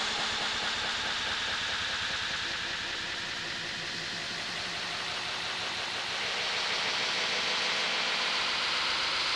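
Digital glitch sound effect: dense, continuous static-like noise with a fine stuttering, crackling texture, dipping slightly and then growing louder again in the second half.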